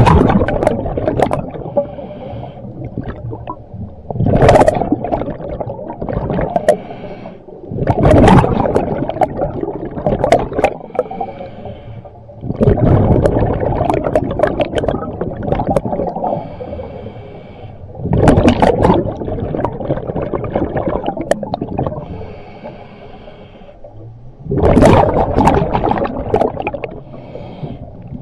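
Scuba diver's breathing through a regulator, heard underwater: a burst of exhaled bubbles about every four to six seconds, six in all, with fainter inhalations between them.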